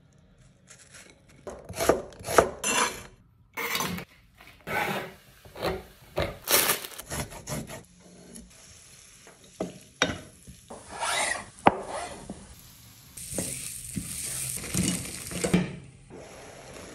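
A run of kitchen prep sounds: a knife chopping and scraping on a wooden chopping board in quick strokes, then a metal utensil stirring and clinking in a glass bowl.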